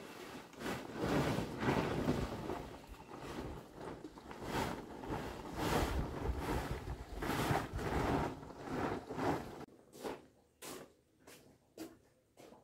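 Large plastic tarpaulin rustling and flapping in repeated swishes as it is lifted and shaken out. About ten seconds in, it goes much quieter, with a few soft taps.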